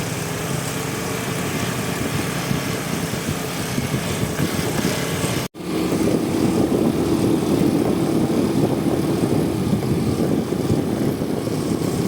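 Aprilia SR 160 scooter's single-cylinder engine running steadily. The sound cuts out for an instant about halfway through and comes back louder, with a steady hum.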